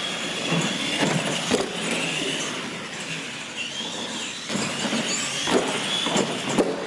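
Electric R/C monster trucks racing across a concrete floor, their motors whining and rising and falling in pitch with the throttle. There are a few sharp knocks as they hit and land off the wooden jump ramps, the loudest near the end.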